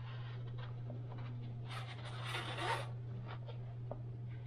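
Rubbing and scraping handling noise as an upside-down MacBook Air is moved about on a desk and a small screwdriver is put to its bottom-case screws, loudest in the middle, with a few faint ticks near the end. A steady low hum runs underneath.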